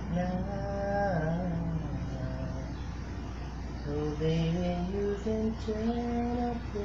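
A voice singing a slow melody in long held notes that glide from one pitch to the next.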